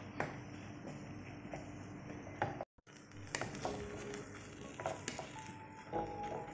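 Faint clicks and scrapes of a wooden spatula stirring chunks of bottle gourd and sardines in a nonstick pan. Soft background music comes in near the end.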